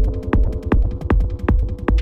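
Fast electronic dance music, techno or trance: a steady kick drum at about 160 beats a minute, lighter hi-hat ticks between the kicks, and a held low synth drone.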